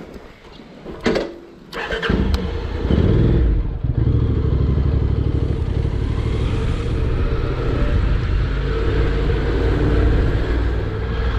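Honda NC750X motorcycle's parallel-twin engine starting about two seconds in, after a couple of clicks, then running steadily.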